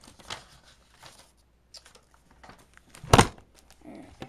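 A package being handled and opened, its wrapping rustling and crinkling in short scattered bits, with one loud sharp crackle about three seconds in.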